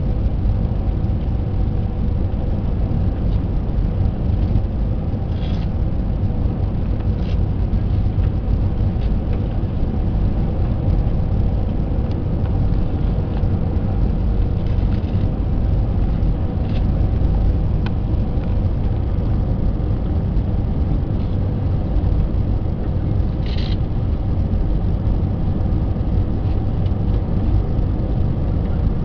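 Inside the cabin of a jet airliner on final approach: the wing-mounted turbofan and rushing airflow make a steady low rumble, with a faint steady hum running through it.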